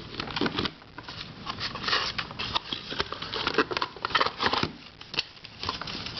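Plastic twisty puzzles being picked up and handled: a run of irregular small clicks, taps and light scraping rattles.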